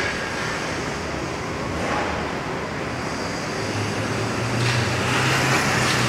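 City street traffic noise: a steady hum of vehicles, with one engine drawing closer and getting louder in the second half.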